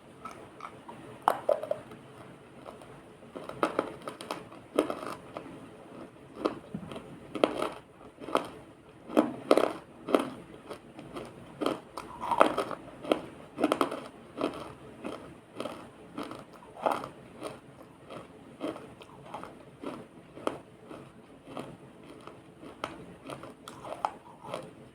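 Close-up crunching bites into a hard, water-soaked brittle material: irregular sharp crunches about one or two a second, with softer crumbling and chewing between them.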